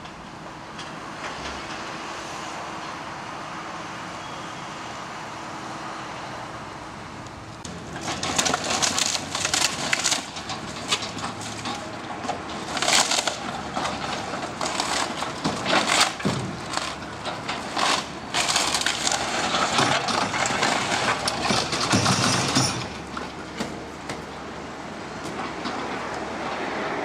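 Building being demolished: after a steady rumble, loud irregular crunching and cracking of breaking timber and debris sets in about a third of the way in and goes on for some fifteen seconds before easing off near the end.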